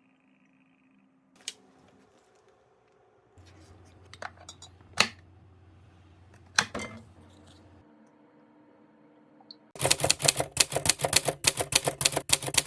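A few isolated clicks, then near the end a rapid, even run of typewriter-like key clicks, about nine a second for some three seconds.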